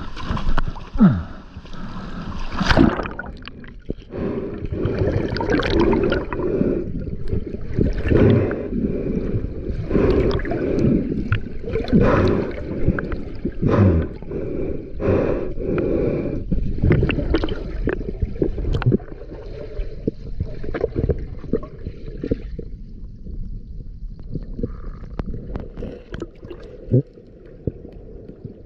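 Water gurgling and sloshing close to the microphone in irregular surges, with bursts of bubbles and short whooshes.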